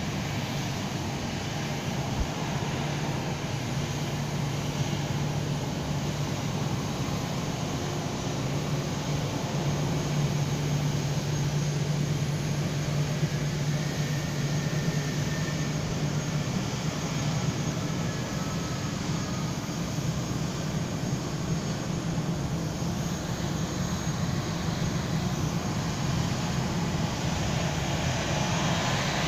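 Steady jet-engine noise from airliners taxiing and holding on the runway, heard through the terminal's window glass. A low hum is strongest through the first half.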